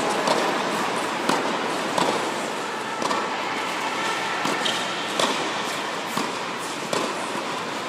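Tennis ball hit by a racket and bouncing on a hard indoor court during a rally: about eight sharp pops, roughly one a second, with a brief echo after each, over a steady background hiss.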